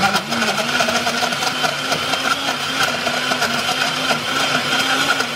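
Oster glass-jar blender running at full speed, blending frozen bananas, oats and protein into a smoothie. Its motor pitch dips and recovers over and over.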